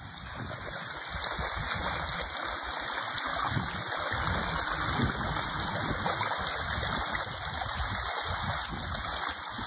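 Steady rush of splashing water as a dog runs through a shallow, water-filled ditch.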